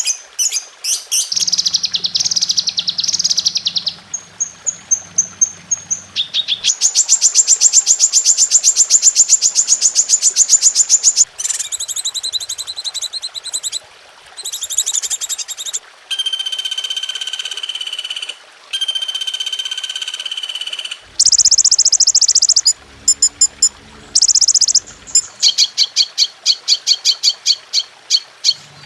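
A spliced run of different songbird calls and songs, switching abruptly every few seconds: rapid high chirps, a long fast trill, then steady whistled notes, then quick chirping phrases. It is a masteran compilation of bird song used to tutor caged songbirds.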